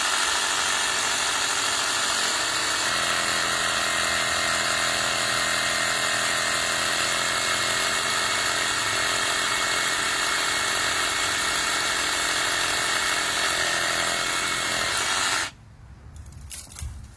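20-volt brushless cordless reciprocating saw running at a steady speed while cutting through a small tree branch, then stopping suddenly near the end.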